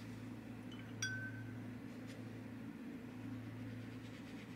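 Steady low hum, with a single small clink that rings briefly about a second in, and faint strokes of a paintbrush on watercolour paper near the end.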